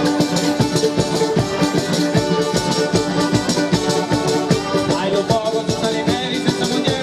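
Live folk band playing a fast dance tune: a diatonic button accordion holds steady reedy chords over strummed acoustic guitar and quick rattling hand percussion. A melody line with sliding notes comes in about five seconds in.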